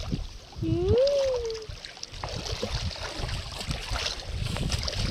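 Wind buffeting the microphone over sloshing seawater. About a second in comes a brief call that rises and then falls in pitch.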